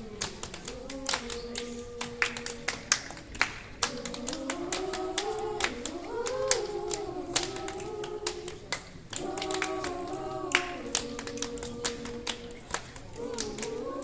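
Girls' choir singing a cappella over their own body percussion: sharp hand claps, slaps and taps keep a rhythm under the held sung notes.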